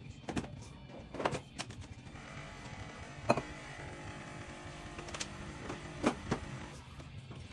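Home espresso machine's pump humming steadily while it pulls a shot, with several sharp clinks and knocks of a steel milk jug and cups on the counter, the loudest about three seconds in.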